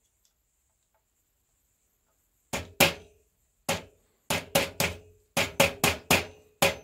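Claw hammer tapping a steel drill bit seated in a ski binding's screw hole: about a dozen quick, sharp metal-on-metal taps in small clusters, starting about two and a half seconds in. The taps punch centred indents into the ski's top sheet to mark where the binding screw holes will be drilled.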